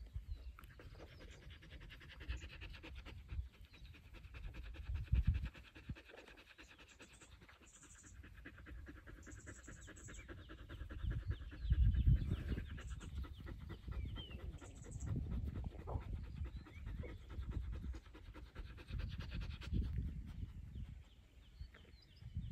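A dog panting, quick and steady, over low gusty noise that swells up a few times.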